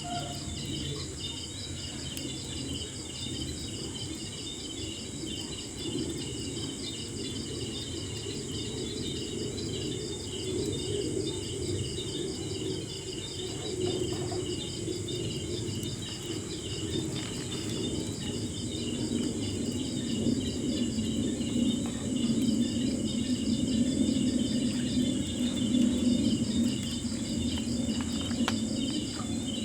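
Campfire burning with a few faint crackles and a low steady rush that grows louder in the second half, under fast, continuous insect chirping.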